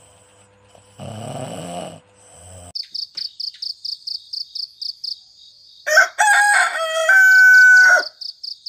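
A rooster crows once, long and loud, about six seconds in, over a high chirping repeated about three times a second that starts a few seconds in. A snore comes about a second in, before the chirping. Together they are a morning wake-up cue.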